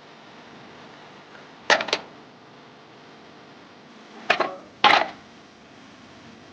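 Hard stones knocking against each other in three short bursts of sharp clacks: one about two seconds in, then two close together between four and five seconds.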